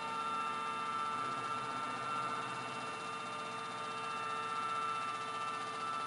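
Small electric motor of a modified Miele W1 toy washing machine, on a new speed controller, running steadily with a high whine as the drum turns with water inside.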